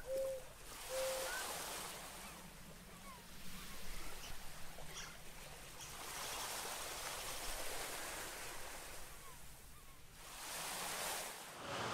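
Sea surf washing in and drawing back in slow swells, with a few short whistle-like chirps near the start.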